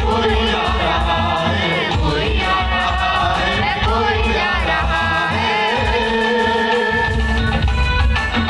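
Live Christian devotional song performed by a small church band: a sung melody over keyboard chords with a steady low beat.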